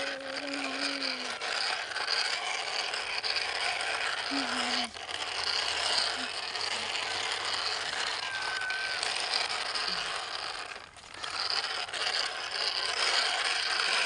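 Plastic toy dump truck pushed by hand over dirt, its wheels and gearing giving a steady ratcheting whir, broken by two short pauses about five and eleven seconds in.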